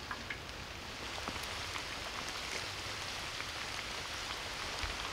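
Steady rain falling: an even hiss with a few light drop ticks scattered through it.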